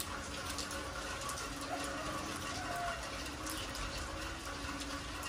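Steady rain falling on a concrete yard and its puddles, an even hiss of water that does not let up.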